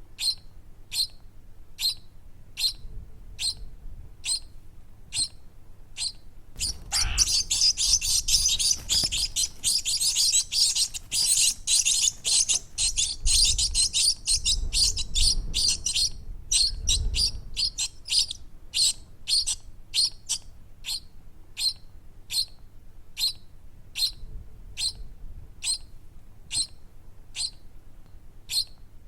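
Baby bird chirping in short, high, evenly spaced chirps, about two a second. About seven seconds in, it breaks into a rapid, dense run of chirping lasting around nine seconds, then the steady chirps return.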